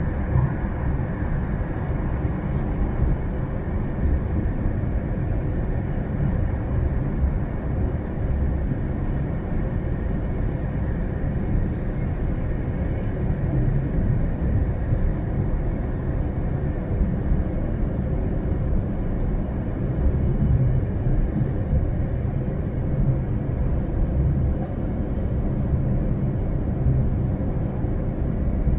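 Steady running noise of an E3 series Shinkansen train at speed, heard from inside a passenger car: an even rumble strongest in the low end, with a few faint clicks.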